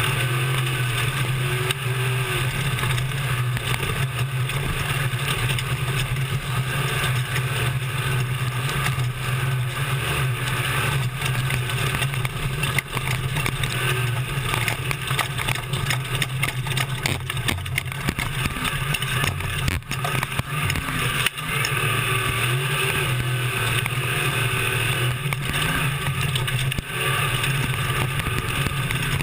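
Desert race truck's engine running at a steady drone, heard from inside the cab over wind and road noise, with frequent knocks and rattles from the truck crossing rough terrain. The engine drops away briefly twice, about two-thirds of the way through.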